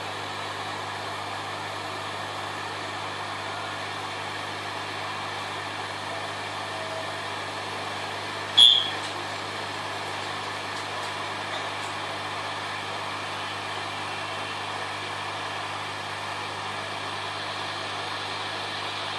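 Steady whirring noise with a low hum, unchanging throughout, and a single short sharp click about eight and a half seconds in.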